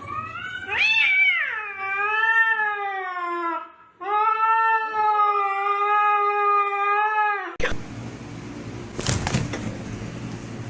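Domestic cat yowling in two long drawn-out calls: the first rises, peaks and sags with a waver, and the second holds fairly steady. Then the sound changes abruptly to a steady rushing noise with a single knock.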